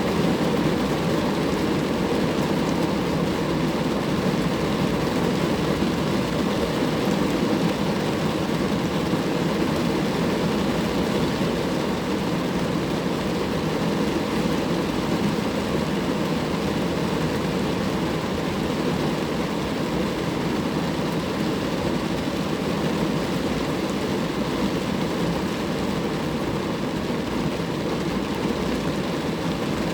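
Rain falling steadily on a car, heard as a dense, even, low-pitched wash of noise that does not change.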